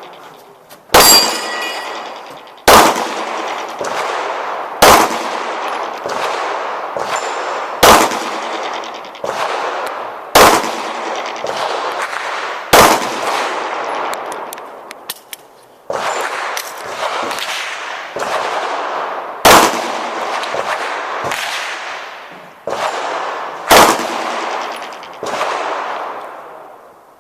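Pistol shots fired one at a time, about two to three seconds apart, each followed by a long echo. A steel target rings after the shot about a second in.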